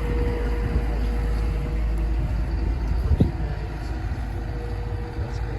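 Heavy diesel paving machinery running with a steady low rumble and a thin constant whine, with a single knock a little past three seconds in.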